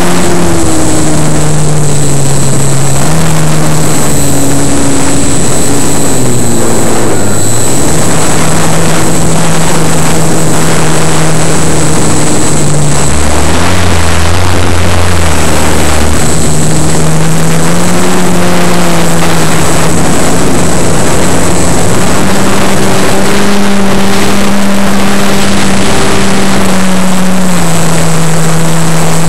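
Radio-controlled model airplane's motor and propeller, heard from a camera mounted on the plane itself, loud and mixed with wind rush. The pitch shifts with the throttle, falling low about halfway through and climbing back up after.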